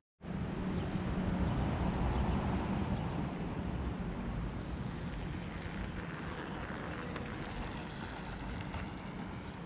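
Steady outdoor city background noise, mostly distant road traffic, swelling over the first few seconds and then slowly easing.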